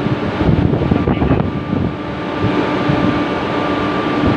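Steady drone of a ship's machinery, holding two steady tones, with wind fluttering on the microphone.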